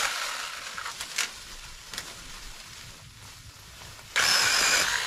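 Small gasoline engine running, its sound fading over a few seconds, then a short loud burst near the end.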